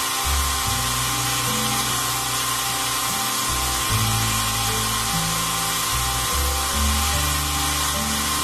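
Belt grinder running, a forged steel knife blade being ground against the abrasive belt, under background music whose low notes change every second or so.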